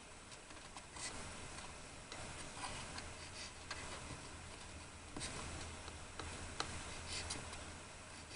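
Light, scattered clicks and taps of small objects being handled, irregularly spaced, over a faint steady low hum.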